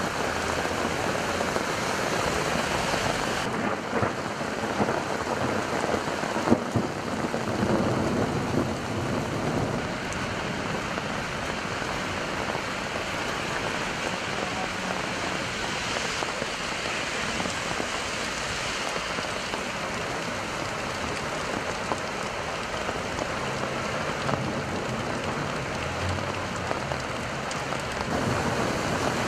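Heavy rain falling onto flooded streets, a steady hiss, with a few brief knocks about four to seven seconds in.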